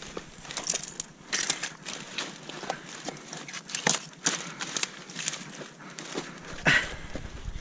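Wet kelp fronds rustling and crackling as handfuls are pulled aside and lifted, with irregular small clicks throughout and one sharper, louder click near the end.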